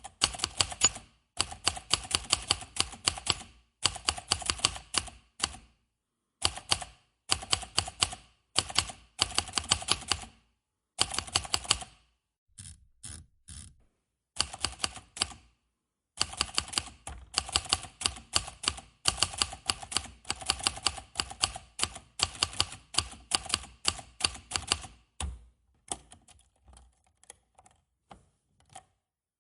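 Manual typewriter being typed on: rapid runs of key strikes in bursts of a second or two, separated by short pauses. There are sparser, fainter strokes twice, once around the middle and again near the end.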